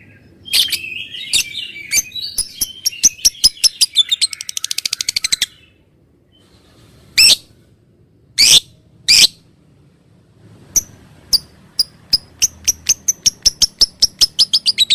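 Lovebird giving its long 'ngekek' chatter: sharp high chirps that speed up into a fast rattling trill. After a pause come three loud single calls, then another run of chirps that quickens into a trill near the end.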